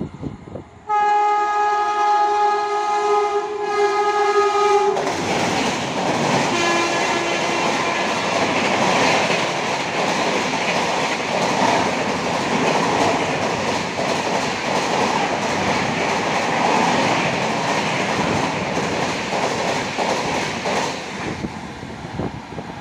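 A locomotive horn sounds one long blast for about four seconds, with a short, fainter second blast just after. Then the LHB coaches of the 12296 Danapur–KSR Bengaluru Sanghamitra Superfast Express rush past at high speed, a steady loud clatter and rush of wheels on rail that fades near the end as the last coach goes by.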